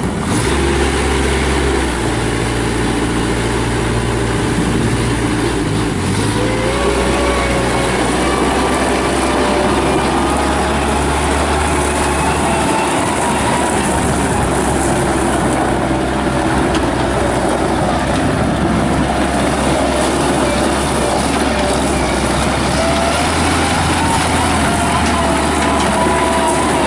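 Bobcat B300 backhoe loader's Kubota diesel engine running steadily at working revs, its pitch shifting a couple of times early on. Whining tones above it rise and fall as the machine is worked.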